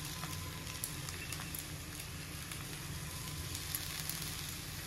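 Soft steady sizzle of spiced potato samosa filling cooking in a steel kadhai, with a few faint scattered crackles.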